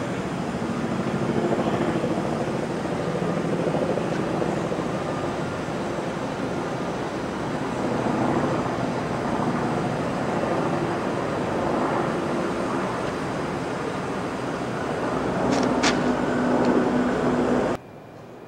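Steady mechanical rumble with a low, wavering engine-like hum, like heavy machinery running, with one sharp click near the end. The sound cuts off suddenly just before the end.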